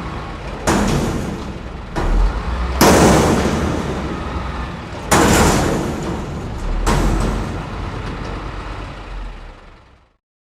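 Garbage truck: a steady low engine rumble under five sudden loud crashes, each dying away over a second or two, before the sound fades out near the end.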